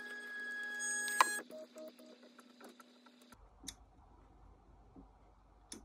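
LowRider v3 CNC's stepper motors whining steadily as the machine homes, with a sharp click about a second in as the whine stops, then a few faint ticks.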